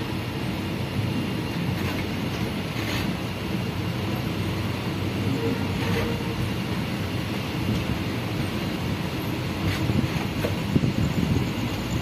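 Devagiri Express passenger train running, heard from on board: a steady rumble of wheels on the track with a few faint clicks.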